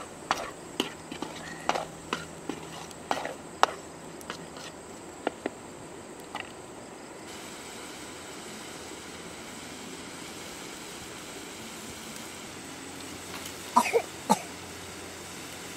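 A wooden spatula knocks and scrapes against a steel wok as eel pieces and red chilies are stir-fried, over a steady frying hiss. The sharp knocks come often in the first six seconds, then three more near the end.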